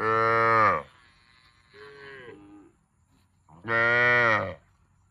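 Cow mooing: two loud, short moos about three and a half seconds apart, with a quieter call falling in pitch between them.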